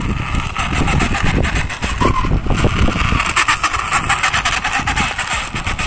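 A steady, engine-like running sound with a fast rattle of fine clicks.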